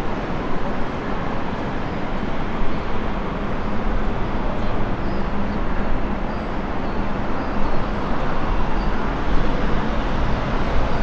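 Steady city street ambience: the even hum of traffic around an urban street.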